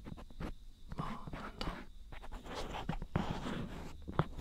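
Fingers touching and rubbing the ears of a binaural dummy-head microphone: close, irregular scratchy rustles and small taps, with soft whispering.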